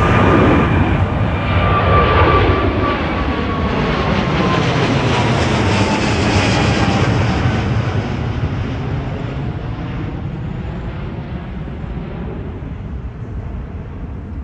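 Boeing 777's GE90 jet engines at takeoff thrust as the airliner departs close by. A loud jet rush with a whine that drops in pitch as it goes past, then a steady fade as it climbs away.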